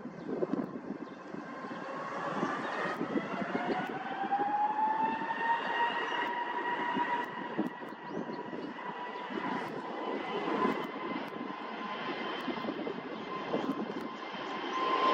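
Turbofan engines of a Turkish Airlines Airbus airliner spooling up. A whine rises in pitch over a few seconds, then holds steady over a jet rumble as the aircraft rolls along the runway.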